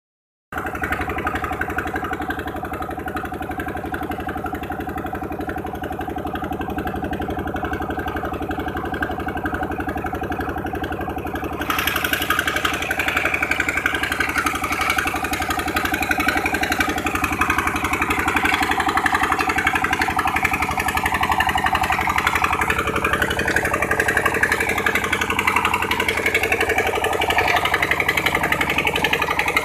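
Engine of a sand-suction dredging machine running steadily; about twelve seconds in it gets louder as a rushing noise joins and keeps on.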